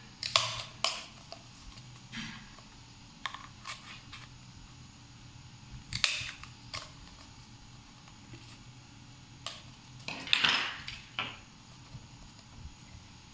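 Handheld hole punch snapping shut as it punches holes in a paper cup: a series of sharp clicks at irregular intervals. The paper cup crackles as it is turned in the hands, loudest in a longer crackle about three quarters through.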